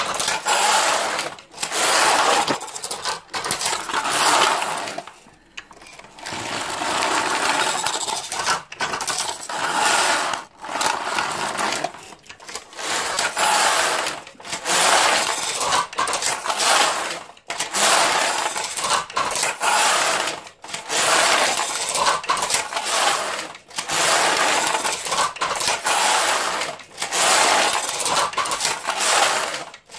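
Passap Duomatic 80 knitting machine's lock being pushed back and forth across the needle beds, a rattling slide of the needles on each pass. Passes of about one and a half to two seconds each, with a short pause at every turn, over and over.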